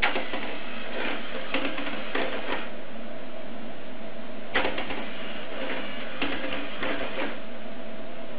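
LEGO-built useless machine: its toggle switch is flicked with a sharp click, then its LEGO gears and arm clatter in a run of clicks as the machine pushes the switch back off. This happens twice, the second time about four and a half seconds in.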